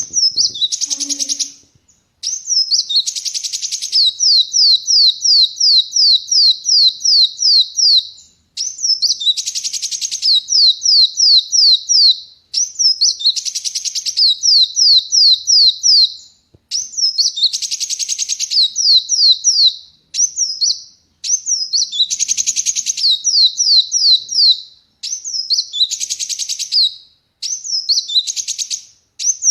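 Kolibri wulung (a sunbird) singing loudly and continuously: long runs of quick, high falling notes, about four a second, broken at intervals by bursts of harsh chatter, in phrases a few seconds long with brief pauses between.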